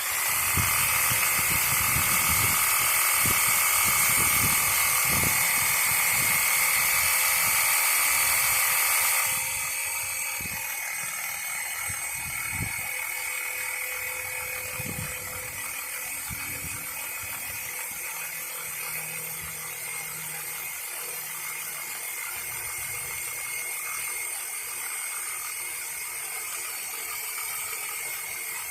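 Reciprocating saw (Sawzall) running steadily as it cuts through a tree log. About nine seconds in it drops noticeably quieter and carries on at that lower level.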